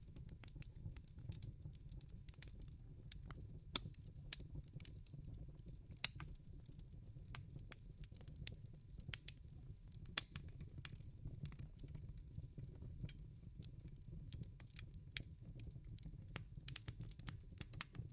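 Wood fire burning in a fireplace: a low steady rumble with irregular sharp crackles and pops, a few louder pops standing out about 4, 6 and 10 seconds in.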